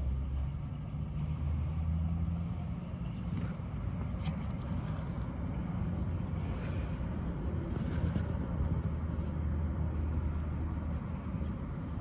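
Steady low mechanical hum, like a motor running, with a few faint clicks on top.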